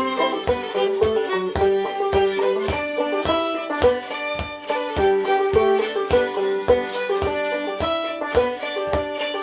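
Old-time fiddle and clawhammer banjo playing a tune together. The fiddle's bowed melody runs over evenly spaced banjo strokes, about two to three a second.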